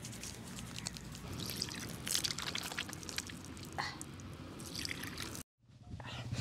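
Water poured from a steel mug splashing on a face and hands and dripping off, faint, with a couple of louder splashes about two and four seconds in. The sound drops out completely for a moment near the end.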